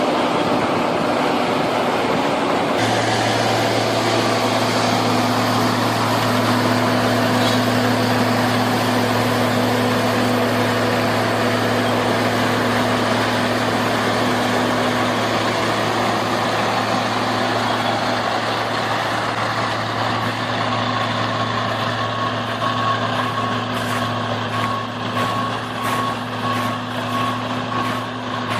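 Heavy diesel construction machine engine running steadily. A faint, evenly pulsing beep sounds over it in the last third.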